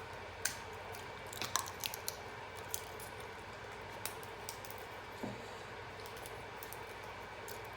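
Boiled crab being cracked and picked apart for eating: scattered short sharp cracks and clicks of shell, with soft squishy sounds of wet crab meat.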